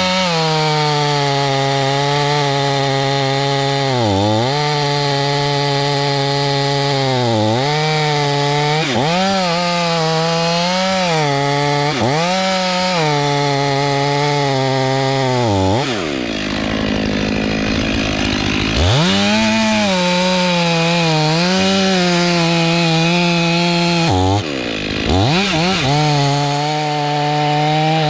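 Two-stroke chainsaw running at high revs, likely cutting pine, its pitch dipping and recovering several times. It drops lower for a few seconds past the middle, then climbs back.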